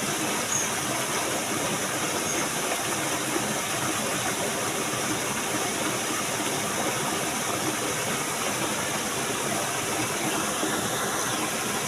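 Steady rushing of flowing water, an even hiss with no breaks or rhythm.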